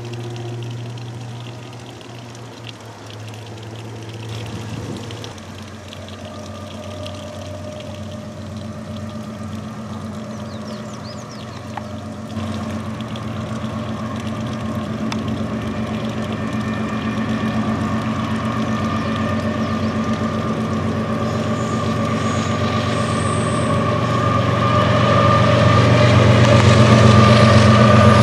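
Union Pacific diesel-electric freight locomotives approaching, their engine drone growing steadily louder as they close in. In the first twelve seconds or so a departing freight train rolls along more quietly.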